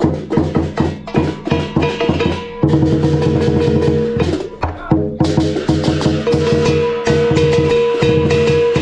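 Chinese lion dance percussion: a large lion drum played together with crash cymbals and a gong. Quick separate beats in the first couple of seconds give way to long, sustained rolls with ringing metal.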